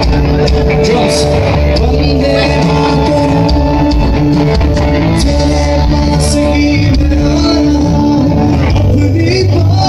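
Live rock band playing loudly in an auditorium, with drums and electric guitars.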